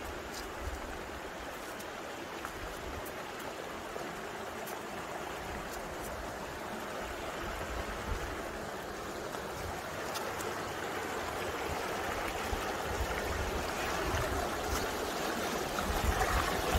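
The Neora River's shallow current rushing over rocks: a steady noise of flowing water that grows gradually louder.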